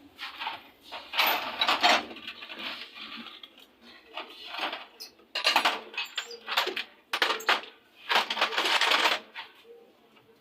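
Metal tools and engine parts clinking and clattering in irregular bursts, with short rasping scrapes between them and a longer scrape of about a second near the end.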